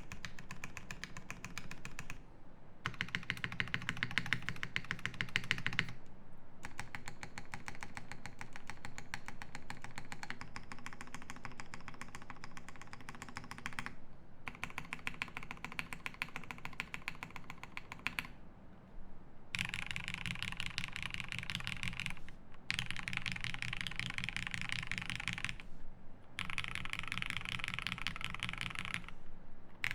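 Fast typing on a Classy TKL mechanical keyboard with a polycarbonate plate, case foam, lubed Cherry Hyperglide MX Black linear switches and GMK keycaps. The keystrokes come in runs of a few seconds, each broken by a brief pause.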